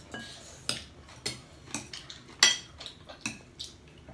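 Cutlery clinking against plates while eating: about eight sharp clinks at an uneven pace, the loudest about halfway through.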